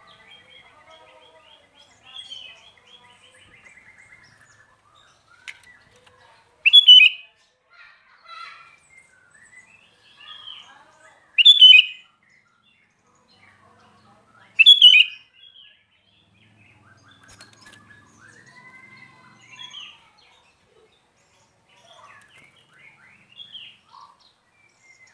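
Sooty-headed bulbul singing. Soft chattering and warbling phrases are broken by three loud, short calls a few seconds apart in the middle.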